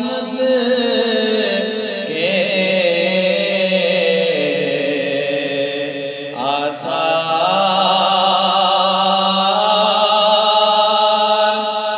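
A man's voice reciting an Urdu naat in long, drawn-out notes that waver in pitch, with a short break for breath about six seconds in.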